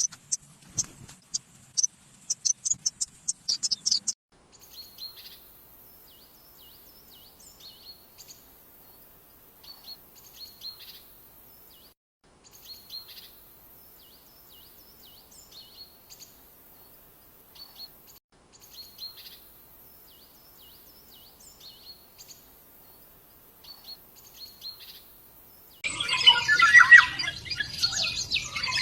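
Small birds chirping: loud, rapid chirps for the first four seconds, then fainter short chirps in small clusters every second or two. About 26 seconds in, the sound switches abruptly to a dense, louder chorus of many birds chirping.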